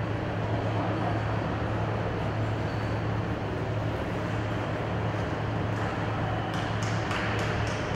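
Steady low hum and hiss of an indoor ice rink's machinery and room noise, with a few short clicks near the end.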